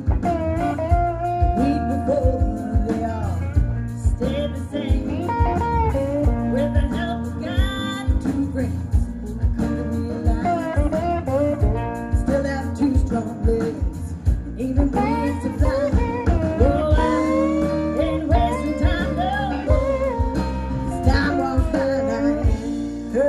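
Background music: a live band's cover song, a voice singing over guitar with a steady beat.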